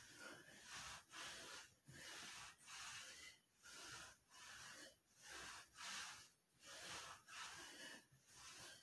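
A man breathing hard from exertion during ab-wheel rollouts: faint, rhythmic hissing breaths in and out, close to one a second.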